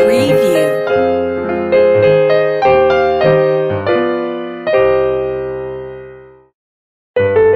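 Background keyboard music with a piano sound: a melody of struck notes that ends on a held chord fading out about six seconds in. After a short gap the music starts again near the end.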